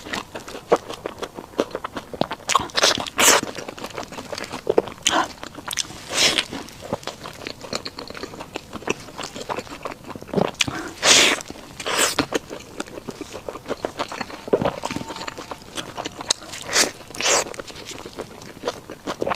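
Close-up eating sounds of a burger: bites and chewing with irregular crunchy, wet smacking bursts every second or so.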